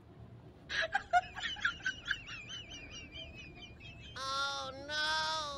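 A small animal cornered by a cat gives a rapid run of high-pitched squeaks, several a second, for about three seconds. Two long, drawn-out cries follow near the end.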